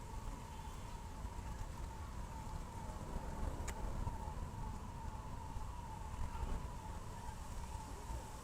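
An electronic siren- or alarm-like tone that falls in pitch and repeats over and over without a break, over a steady low rumble.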